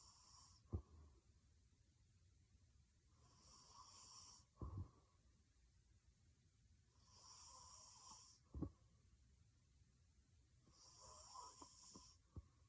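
A sleeping young woman snoring heavily: about every four seconds a drawn breath ends in a short, sharp snort, four times over.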